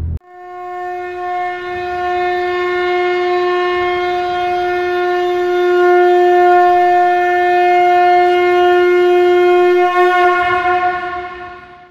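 A horn blown in one long, held note at a steady pitch. It swells to its loudest about midway and fades away near the end.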